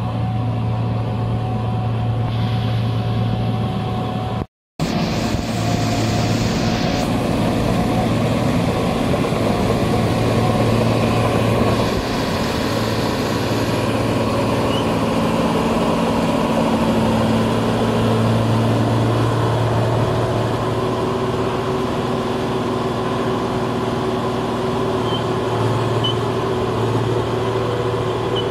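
Diesel engine of a New Holland tracked combine harvester running steadily under load, with a deep even hum. The sound cuts out completely for a moment about four and a half seconds in.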